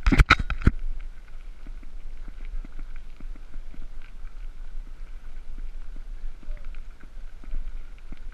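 A few loud knocks at the very start, then the irregular, faint footsteps of several people walking along a path.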